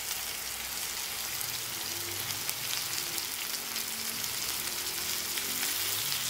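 Raw chicken pieces sizzling in a pan of onions and whole spices frying in hot fat: a steady sizzle with fine crackling throughout.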